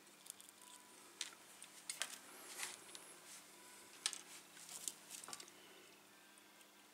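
Faint scattered clicks and short rustles of small tools and parts being handled at a workbench, about half a dozen in all, over a faint steady hum.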